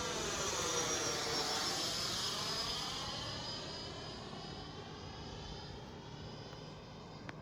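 Freewing F-16 RC jet's 90 mm electric ducted fan passing low overhead at speed: a rushing whine that is loudest about a second in, drops slightly in pitch as it goes by, and then fades away.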